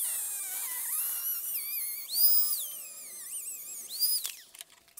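Rotary tool with a 1/32-inch cutoff wheel grinding into the steel inner race of a wheel bearing left on the hub, a high whine whose pitch wavers up and down as the wheel bites. It cuts out briefly near the end with a couple of clicks.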